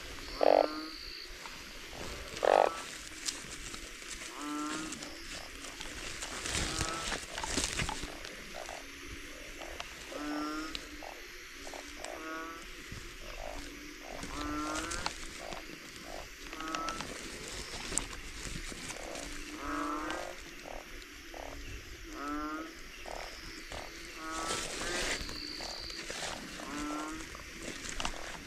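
A chorus of frogs calling after heavy rain, with many short croaking calls repeating and overlapping and two louder ones close by near the start. Rustling and clicks from a net and sack being handled come through in places.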